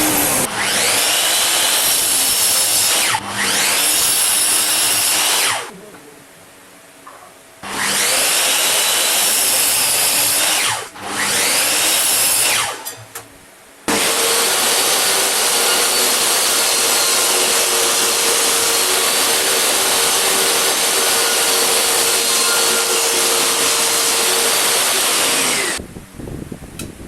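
Electric power tool working wood, run in four bursts with short pauses between. The first three start with a rising whine as the motor spins up, and the last runs about twelve seconds before stopping near the end.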